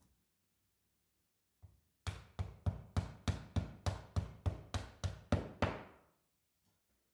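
A wooden mallet strikes the spine of a kitchen knife about thirteen times in a steady rhythm, roughly three blows a second, driving the blade down through a piece of raw meat onto a bamboo cutting board.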